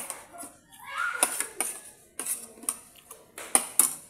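Tableware clinking as someone eats a meal: about ten sharp, separate clinks against a plate, scattered irregularly.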